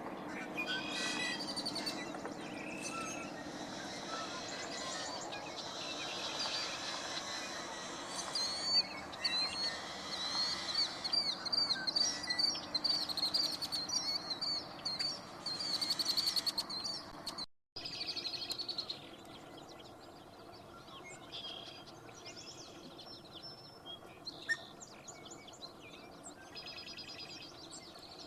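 Several wild birds singing and calling, with rapid chirps and trills that build to the loudest, densest stretch about halfway through. The sound cuts out briefly about two-thirds of the way in, then resumes quieter with sparser calls over a faint steady background.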